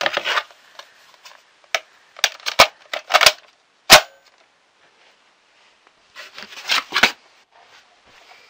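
Nerf blaster being handled and fired: three sharp snaps in a little over a second, with clattering between them, a quiet stretch, then another burst of clatter near the end.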